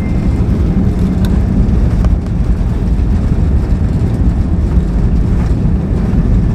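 Airbus A320 rolling out on the runway after touchdown, heard inside the cabin: a loud, steady low rumble.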